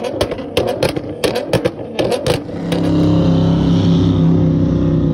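A car's exhaust popping and banging in a quick irregular run for about two and a half seconds, then the engine held at steady high revs, as in a burnout.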